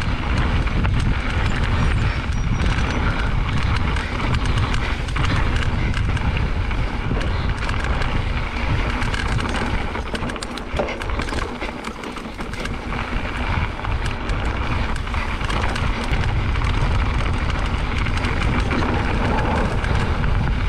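Wind buffeting the microphone and mountain bike tyres rolling over a dirt trail, with short rattles and knocks from the bike over bumps. The wind rumble eases briefly about halfway through.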